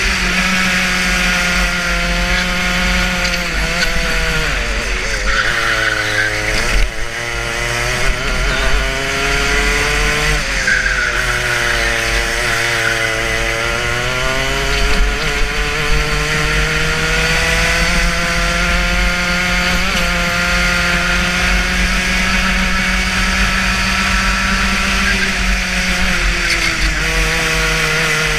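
Onboard sound of a two-stroke racing kart engine at speed. The revs drop into corners and climb out of them several times, staying high and steady along a straight in the later part. There is a brief knock about seven seconds in.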